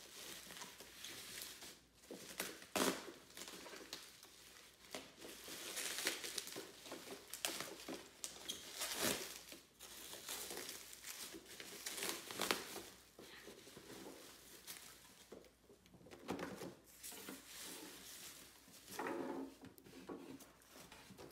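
Plastic bubble wrap crinkling and rustling as it is pulled off a boxed vinyl figure, in irregular spells with a few sharper crackles.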